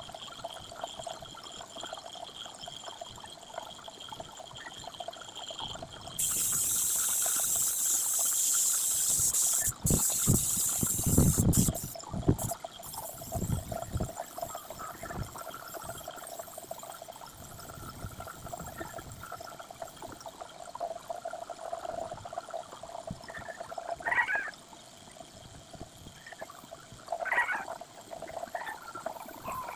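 Gravity-feed spray gun hissing as compressed air sprays paint. It starts sharply about six seconds in, lasts about six seconds and stops, with a few knocks as it cuts off.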